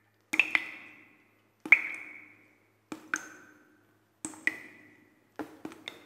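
A string of short, bright pings, struck mostly in pairs about every 1.3 s. Each one rings briefly and fades out within a second, with a quicker run of three strikes near the end.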